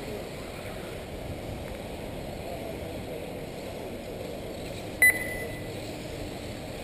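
Steady running noise of 1/8-scale electric off-road RC buggies on the track, with one short, sharp electronic beep about five seconds in.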